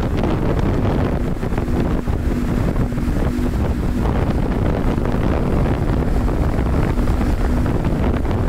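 Mercury outboard motor running steadily while towing a water skier, with wind buffeting the microphone and water rushing past the boat.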